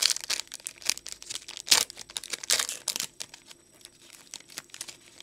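Foil trading-card pack wrapper being torn open and crinkled in the hands: a rapid run of sharp crackles, loudest in the first three seconds, then fainter crinkling.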